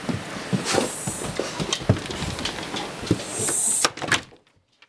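A dog coming in through a doorway from the snow: scattered knocks and scuffs over outdoor wind noise. Near the end a door swishes shut with a couple of knocks, and the outside noise cuts off.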